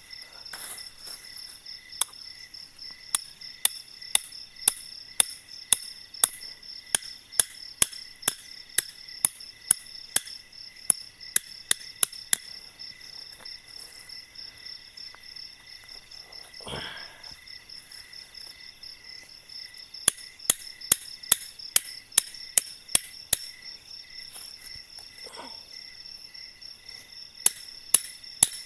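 Tent stake being hammered into the ground: sharp knocks a little under two a second, in three runs with pauses between them. Steady chirring of night insects runs underneath.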